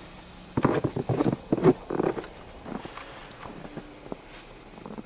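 Footsteps crunching in snow: a quick run of loud steps from about half a second to two seconds in, then fainter, scattered steps.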